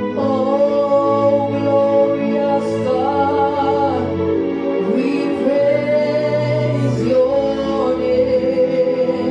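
Slow gospel song: a singer holding long, wavering notes over sustained instrumental chords.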